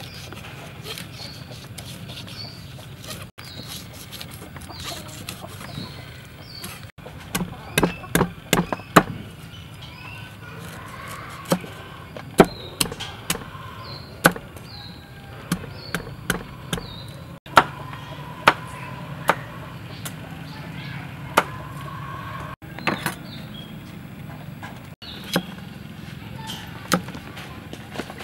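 Steel cleaver chopping herbs and roots on a thick wooden chopping block: sharp knocks, a quick run of about six strikes about a third of the way in, then single chops spaced a second or so apart.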